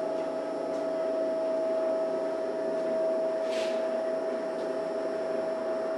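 Electric motor of a stainless-steel, round-lidded potato-chip processing machine running steadily, a constant hum with one clear steady tone over it.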